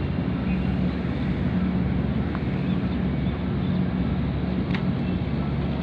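A boat's engine running steadily with a low, even drone as the boat moves through the water, heard from on board.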